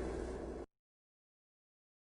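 Background electronic music getting quieter, then cut off abruptly about a third of the way in, followed by dead silence.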